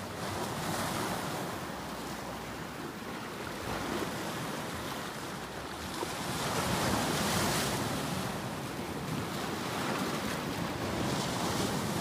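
Ocean surf: waves breaking and washing in, a continuous rushing that swells louder about every three seconds.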